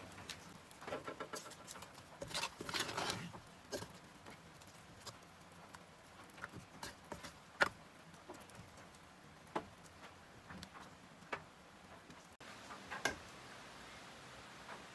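A spoon stirring a thick dal and leaf curry in a black clay pot: soft wet scraping with irregular clicks of the spoon against the pot, busiest about two to three seconds in, then only scattered single clicks.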